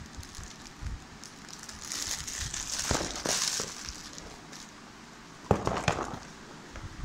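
Clear plastic bag crinkling as it is pulled off a shoe, then a few sharp knocks near the end.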